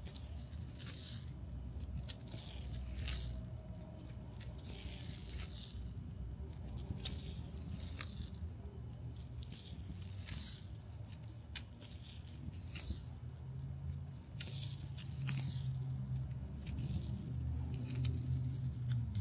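Water-activated resin fibre repair tape being peeled off its roll and wound around a tool handle by gloved hands: a run of short raspy peeling and rubbing strokes, about one a second, over a low steady hum.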